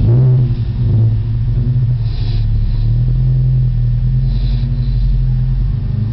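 Bullmastiff snoring loudly in deep sleep: a low, steady rumbling snore, with a breathy hiss about two seconds in and again about two seconds later.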